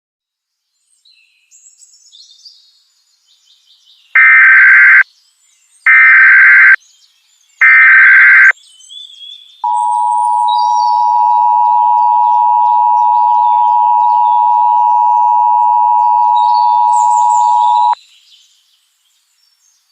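Emergency Alert System broadcast tones: three loud bursts of SAME header data, each just under a second, then the two-tone attention signal (853 and 960 Hz together) held steady for about eight seconds before cutting off. Faint bird chirps come in the first few seconds.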